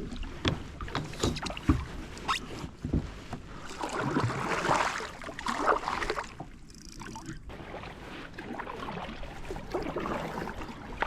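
A kayak being paddled: the paddle splashing and swishing through the water, with several sharp knocks in the first few seconds.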